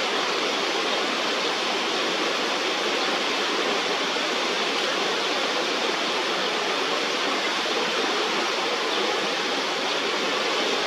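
Fast, shallow river rushing over rocks: a steady, even rush of water.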